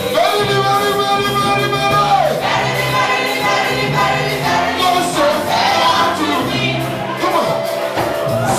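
Gospel worship music: voices singing long held notes with a choir over a band with a steady bass line.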